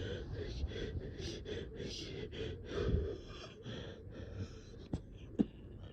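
A person's rapid, shallow, gasping breaths, about three a second, labored from shortness of breath. The breathing stops about four and a half seconds in, and two sharp clicks follow near the end.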